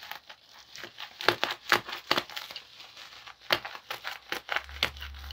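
Plastic packaging (a plastic bag and bubble wrap) crinkling and rustling as it is handled and pulled off a package by hand, with irregular sharp crackles, a few of them loud.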